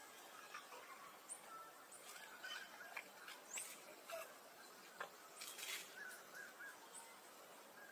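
Near silence with faint outdoor background, broken by scattered brief high-pitched chirps and a few soft clicks.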